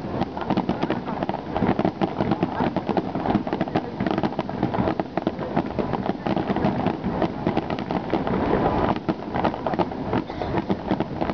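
Aerial fireworks finale: many shells bursting in rapid, overlapping succession, a dense continuous barrage of bangs.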